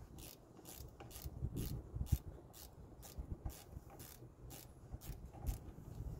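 A small hand tool working at the brake caliper's pins on a 2000 Ford F-150: quiet metal scraping and clicking, against a steady high ticking about three times a second.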